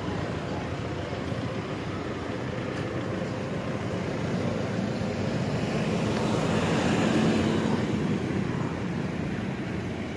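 Road traffic: motor vehicle engines running in a slow-moving jam, with one engine growing louder and fading again about two-thirds of the way through.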